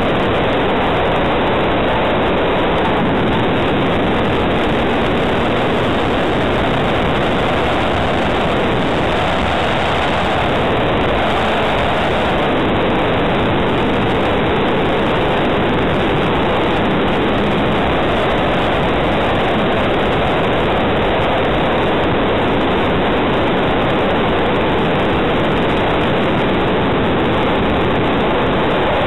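Aircraft in flight heard through its onboard camera: a loud, steady rush of airflow over the microphone with the engine running underneath.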